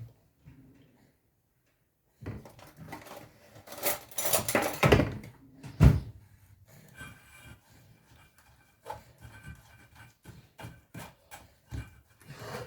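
Kitchen handling noises: containers and utensils being moved and knocked together, with one loud thump about six seconds in and scattered small knocks after it.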